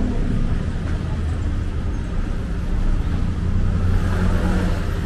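Street traffic noise: motor vehicles running close by, with a steady low rumble.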